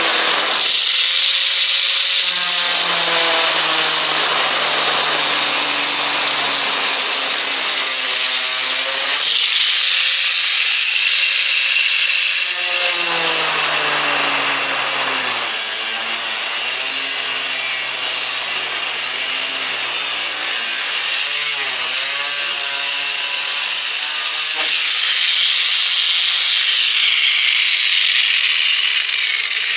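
Angle grinder with an abrasive cutoff wheel cutting through a sheet-metal shed wall, a loud continuous grinding hiss throwing sparks. The motor's pitch sags and recovers several times as the wheel bears into the cut.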